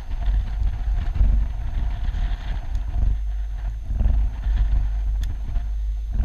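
Wind buffeting the microphone: a loud, gusty low rumble, with a single sharp click about five seconds in.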